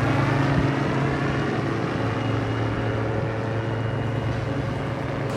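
A steady engine drone with a low, even hum, slowly fading as it moves away.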